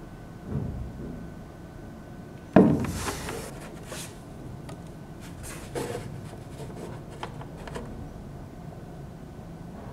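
Handling noise on a wooden table as a battery pack and multimeter probes are moved: a sharp knock about two and a half seconds in, then rubbing, with a few lighter clicks and taps later.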